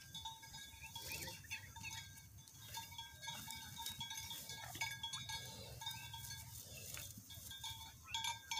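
Faint farm-animal calls from the cattle pen, over a steady, faint high ringing tone.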